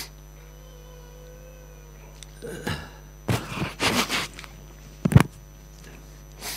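A man sniffing and snuffling into his hands at his nose: several short, noisy breaths through the nose, with a single sharp thump a little after five seconds.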